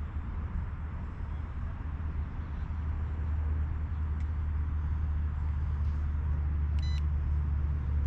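Steady low rumble of wind on the microphone, growing a little stronger about three seconds in, with one short electronic beep from the drone's handheld remote controller about seven seconds in.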